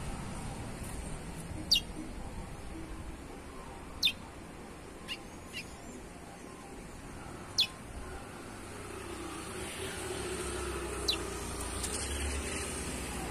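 Young chestnut-bellied seed-finch (curió) giving about six short, sharp downslurred chirps, spaced a second or more apart. Steady traffic noise runs underneath, with a vehicle rumble building near the end.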